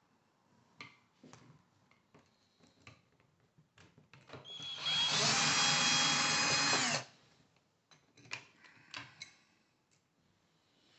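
Cordless drill-driver running for about two and a half seconds on a screw in a geared e-bike hub motor, a steady whine that winds down as it stops. Light clicks and knocks of metal parts and tools being handled come before and after it.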